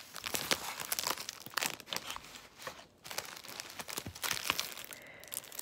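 Paper sheets and a clear plastic stamp sleeve rustling and crinkling as they are handled, in many short irregular crackles.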